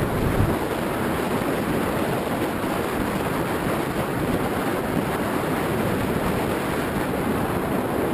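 Steady rushing airflow over the microphone of a camera mounted on a flying Easy Star II RC plane: a dense, even hiss with no clear motor tone.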